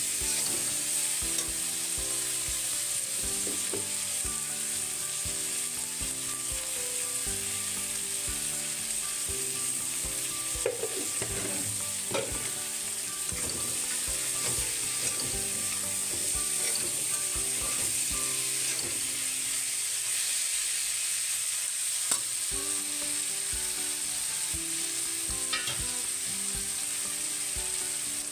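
Chopped tomatoes and green peas sizzling in hot oil in an aluminium kadhai, a steady hiss, with the scrape and clink of a metal spatula stirring them now and then.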